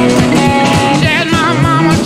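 Live electric blues trio playing: two electric guitars and drums with no bass, the drums keeping a steady beat. About a second in, a wavering high lead line comes in over the rhythm guitar.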